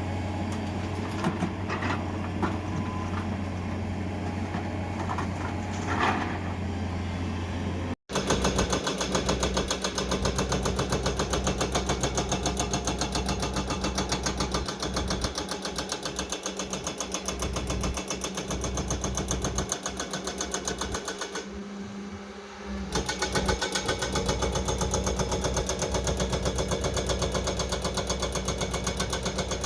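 Excavator's diesel engine running steadily. After a sudden cut, a fast, even, rapid-fire hammering runs over the engine, fading briefly about three-quarters of the way through before returning.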